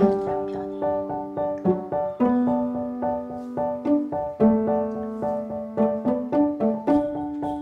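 Background music: a light keyboard tune of quick repeated notes, about four a second, over held lower notes that change every couple of seconds.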